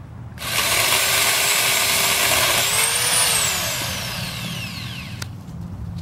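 Pole chainsaw (a chainsaw on a long pole) run up to speed about half a second in, with a high whine that climbs and then winds down as the motor slows to a stop about five seconds in.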